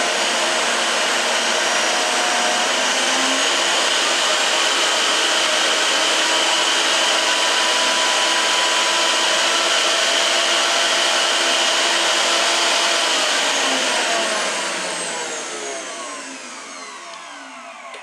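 Preethi Zodiac 2.0 mixer grinder's motor running at speed with a steady whirring and a high whine. About fourteen seconds in it spins down, the whine falling in pitch as the sound fades.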